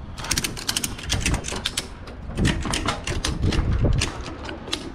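Ratchet buckle on a cargo lashing strap being worked to tension the strap. The pawl clicks in quick runs, with heavier low knocks about halfway through.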